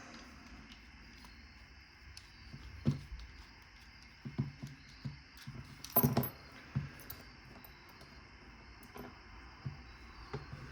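Scattered small clicks and knocks of an American Lock 1100 padlock being handled and taken apart with tools, with one louder knock about six seconds in.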